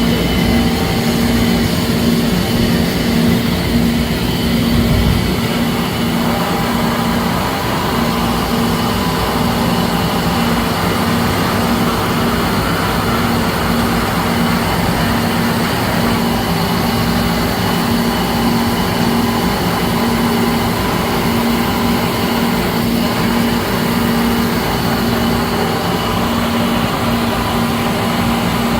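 Traub TNL 26 CNC Swiss-type lathe running: a steady mechanical hum with a low tone that pulses evenly throughout.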